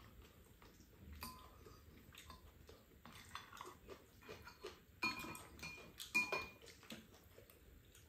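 A metal spoon scraping and clinking against ceramic bowls, with chopsticks tapping, as people eat at a table. Quiet scattered clicks, with a few short ringing clinks about five to six seconds in.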